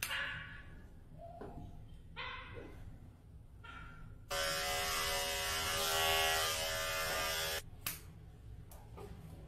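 Small electric pet clipper or trimmer buzzing for about three seconds, switched on and off abruptly, after a few short fainter noises.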